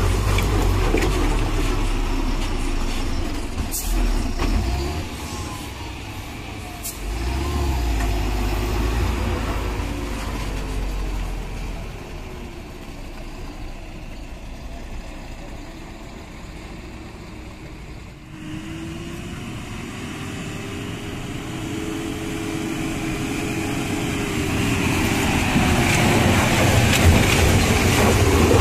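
Diesel engines of heavy bulk cement tanker trucks pulling up a steep dirt climb. The first truck's low rumble fades away past the middle, and after a sudden break about two-thirds of the way through a second truck grows steadily louder toward the end.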